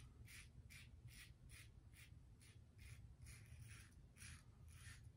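Aylsworth Apex aluminum safety razor scraping through stubble and lather in quick short strokes, about three a second, faint. Its aluminum head gives a higher resonance than a brass razor.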